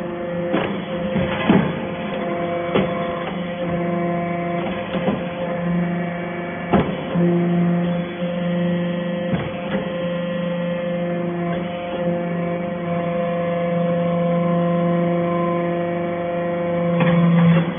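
Steady hum of a steel-chip baling and compacting plant running, several steady tones at once, with scattered sharp clicks and knocks throughout.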